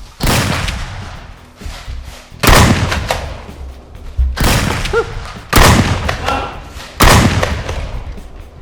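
Five loud booming hits, each dying away over about a second, spaced one to two seconds apart.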